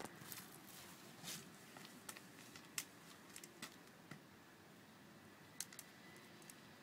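Near silence, with a handful of faint, scattered clicks and ticks, the two strongest about a third of the way in and near the end.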